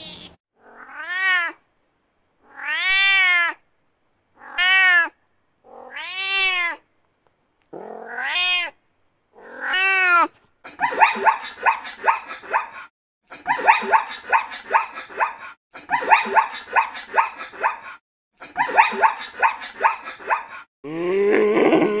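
An animal calling: six separate cries that rise and fall in pitch, each under a second with silence between, then four stretches of rapid pulsed calling, each about two seconds long.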